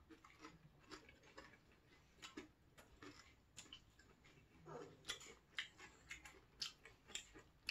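Near silence with faint, irregular soft clicks and ticks from eating with chopsticks and chewing.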